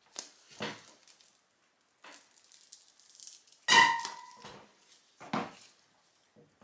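Wire soap log cutter pressed down through a log of freshly cut cold-process soap: several scraping, sliding strokes, with a sharp clunk and a brief metallic ring about halfway through as the cutter frame comes down.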